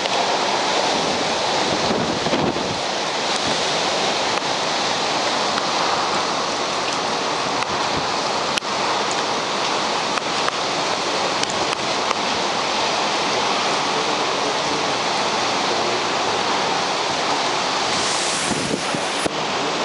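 Heavy rain and gusting wind of a tropical cyclone: a steady, even rush of noise, with wind buffeting the microphone.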